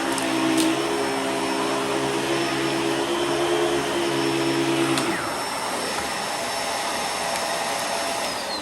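Bissell Pet Hair Eraser Turbo upright vacuum running with a steady hiss and a low hum; the hum drops out about five seconds in. Near the end the vacuum is switched off and its motor whine starts falling as it spins down.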